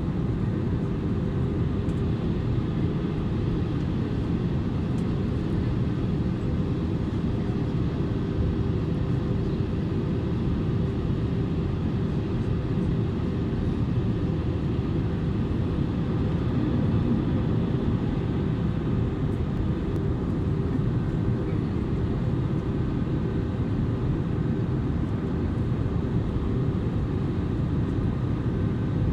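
Steady cabin noise inside an Airbus A320neo in flight: the low rumble of its Pratt & Whitney PW1100G geared turbofans and airflow over the fuselage, with a faint steady hum on top.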